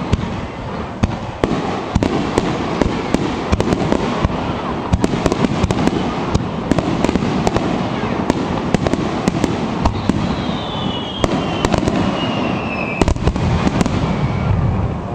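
Fireworks display: many sharp bangs and crackles over a continuous rumble, with a falling whistle for a few seconds past the middle.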